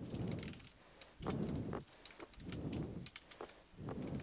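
Computer keyboard being typed on: quiet, uneven runs of key clicks with soft thuds as keys bottom out.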